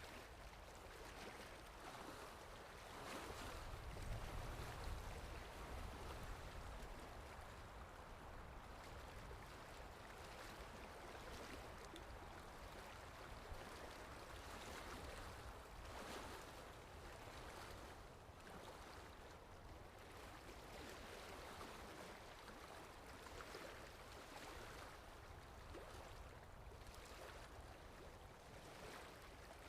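Sea waves washing on the shore, a faint, steady surf with slow swells, the biggest about 3 to 6 seconds in.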